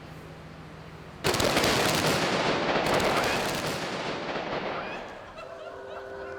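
Gunpowder laid out for a gunpowder drawing ignited: a sudden rushing, crackling burn starts about a second in and fades away over some four seconds. Soft music plays before it and returns near the end.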